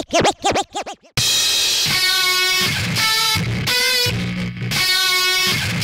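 Background rock music with electric guitar and drums, starting about a second in after a short wobbling sound effect.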